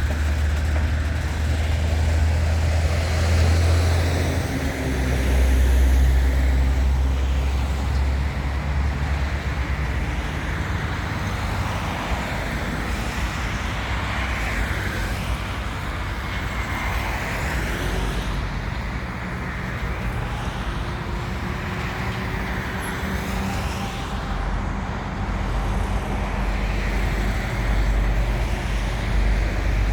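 HŽ series 2041 diesel locomotive engine running with a steady low drone; its note drops about four to five seconds in and the engine settles lower for the rest.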